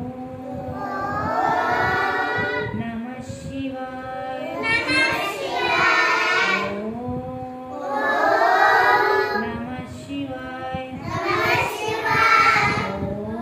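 A group of young children singing a devotional prayer together in unison, in several long phrases that swell and fade.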